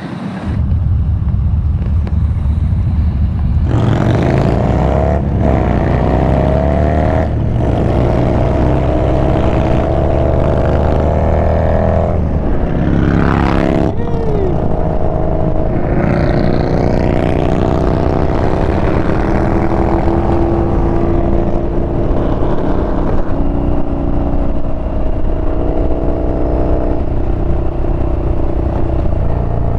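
Yamaha Bolt motorcycle's air-cooled V-twin engine under way. It accelerates with the pitch climbing, then drops back at each gear change and climbs again, before settling into a steady cruise.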